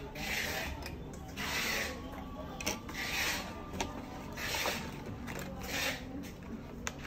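Packaging being handled with repeated rasping, rubbing strokes, about five of them, each under a second long, with light clicks in between.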